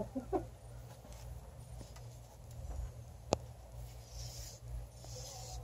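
Faint low background rumble with a single sharp click about three seconds in.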